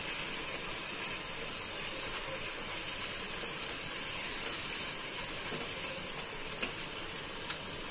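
Onions, tomatoes and green chillies sizzling steadily in oil in a nonstick kadhai, the tomatoes already cooked soft, while a silicone spatula stirs them. A couple of faint taps near the end.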